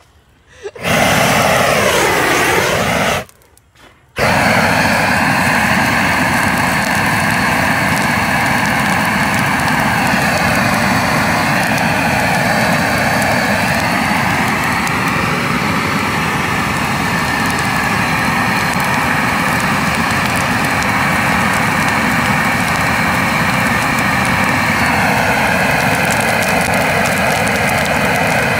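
Propane weed-burner torch running at full flame, a loud steady rush with a slowly wavering tone. It starts about a second in, cuts out for a moment near three seconds, then runs on steadily.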